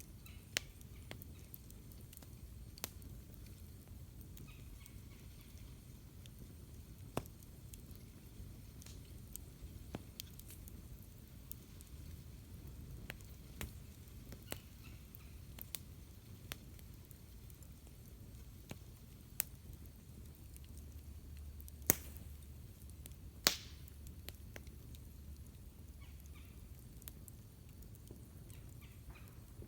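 Wood campfire crackling: sharp pops at irregular intervals over a low, steady rumble, the two loudest pops coming about two-thirds of the way through.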